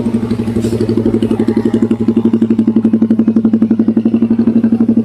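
Small motorcycle engine running steadily close by, a rapid, even putter with no change in speed.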